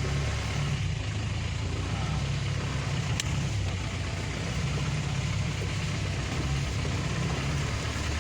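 Car running on the road: a steady low engine and road rumble, with one brief sharp click about three seconds in.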